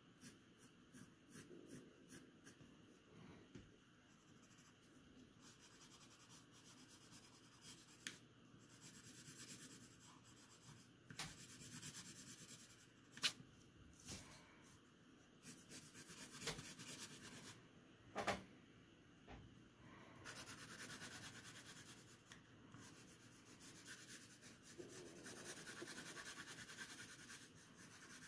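Faint scratching of a graphite pencil shading on drawing paper: quick short strokes at first, then longer stretches of steady rubbing, with a couple of sharp clicks about halfway through.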